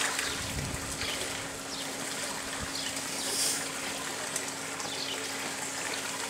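Swimming-pool water trickling and splashing steadily, over a constant low hum.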